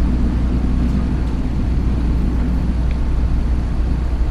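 The Ferry Tokashiki's engines running with a steady low rumble while the ship lies moored.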